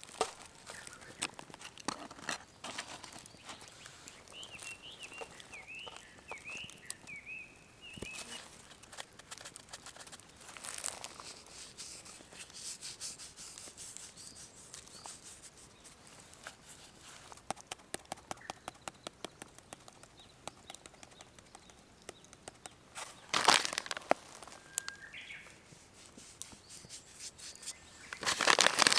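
A small bird chirping in a quick series of short notes about four to seven seconds in, over outdoor ambience with many scattered sharp clicks and crackles. A brief louder rush of noise comes near the end.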